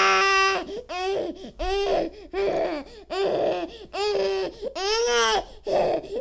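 Infant crying: repeated high-pitched wails, about one a second, each held briefly and then falling off, with short catches of breath between them.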